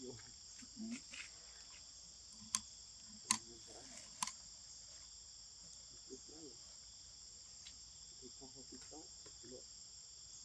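Steady high-pitched chorus of insects such as crickets, with three sharp clicks between about two and four seconds in.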